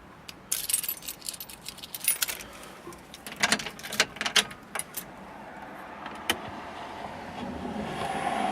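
A jangle of keys and a run of sharp clicks from dashboard controls, then the car radio coming on: a steady hiss that slowly swells during the last few seconds, just before a broadcast is heard.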